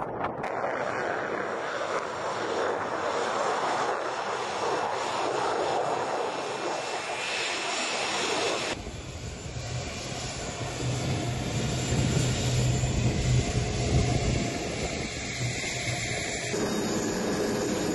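Jet engines of a Superjet SJ-100 running on the ground: a steady rushing noise. About nine seconds in the sound changes abruptly to a lower, steadier hum from the PD-8 turbofans, and it changes abruptly again near the end.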